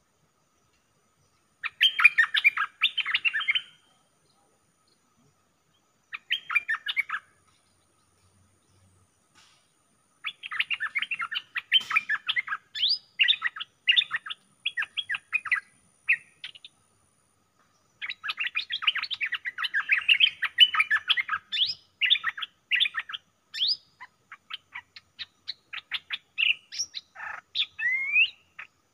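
Decoy bulbul (merbah) singing from a trap cage: spells of fast, chattering notes, four spells with pauses between them, ending with a few rising whistled notes.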